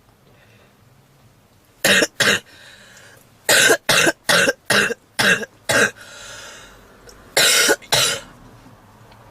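A woman's heavy smoker's cough in three bouts: two coughs about two seconds in, a quick run of six, then two more near the end, with wheezy breaths drawn in between. It is the kind of cough presented as typical of smoker's bronchitis.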